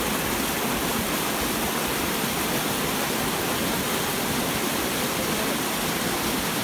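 Mountain waterfall cascading over rocks: a steady, even rush of water.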